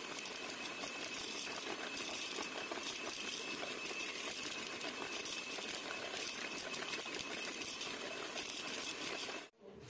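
Electric hand mixer running steadily, its beaters creaming margarine and sugar in a bowl, with a faint constant whine from the motor. It is switched off and cuts out suddenly near the end.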